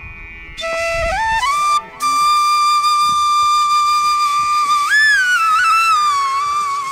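Background music: a single flute-like melody line, mostly long held notes with smooth slides between pitches. It comes in about half a second in, breaks off briefly near two seconds, then holds one long note before bending upward and back down.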